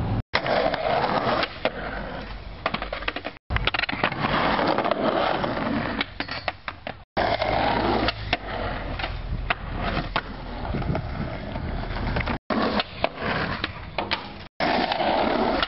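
Skateboard wheels rolling on concrete with the sharp clacks of the board popping and landing, over several short takes that cut off abruptly.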